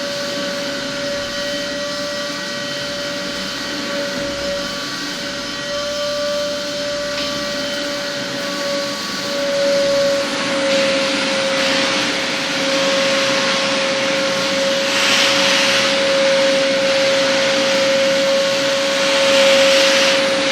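Homemade cyclone construction vacuum running steadily with a strong motor whine. In the second half a rushing air hiss swells up several times.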